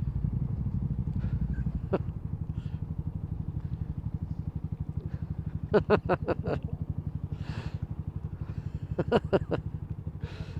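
A 2017 Yamaha MT-125's single-cylinder 125cc engine, running through a Scorpion Serket full exhaust system, cruising at a steady pace. Two short clusters of pitched sounds come through, about six and nine seconds in.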